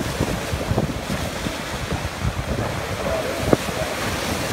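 Storm surf breaking and churning against rocks in a nor'easter, with strong wind buffeting the microphone. A brief thump about three and a half seconds in.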